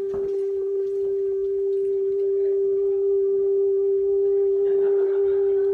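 A single low tone held steady without a break, with faint overtones above it.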